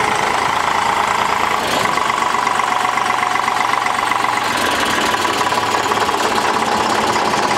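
Eicher 485 tractor's diesel engine running at low speed as it is driven close past, a steady, even drone.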